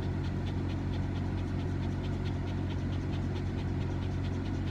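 Small shaggy dog panting rapidly and evenly, over the steady low rumble of car road noise inside the cabin.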